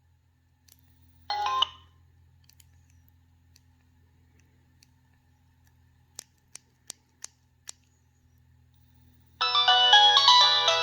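Nokia 3220 mobile phone playing polyphonic MIDI ringtones through its small speaker: a brief snatch of a tone just over a second in, five quick sharp clicks around six to eight seconds in, then a new busy multi-note ringtone melody starting about nine seconds in.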